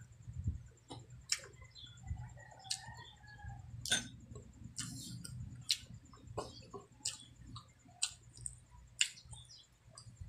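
Close-up mouth sounds of chewing braised pork leg: sharp, wet smacks and clicks at irregular intervals, about one a second, over a low steady hum.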